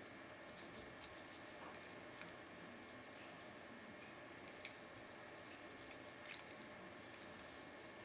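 Light, irregular metallic clicks and ticks of a lock pick working the pin tumblers of a cruciform-key padlock, with the sharpest click a little past halfway.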